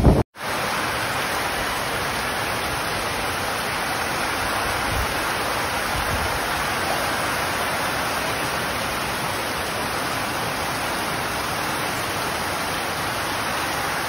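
Heavy typhoon rain pouring steadily onto corrugated metal roofs and streaming off the eaves, an even hiss. It follows a brief break at the very start.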